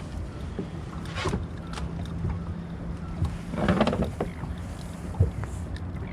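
Boat engine idling with a steady low hum, with scattered light knocks and a brief louder rustle a little past the middle.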